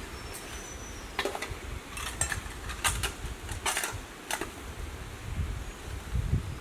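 Irregular rustling and crinkling, about six short bursts between one and four and a half seconds in, over a low wind rumble on the microphone.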